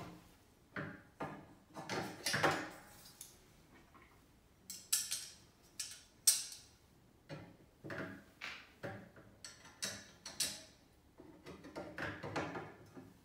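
Black metal frame rods of a tiered document tray being handled and fitted together, knocking and clinking against each other and the desktop in an irregular string of short clicks and clanks.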